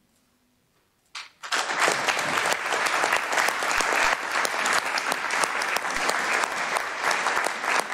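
Applause, a group of people clapping, breaking out about a second in after near silence and carrying on steadily.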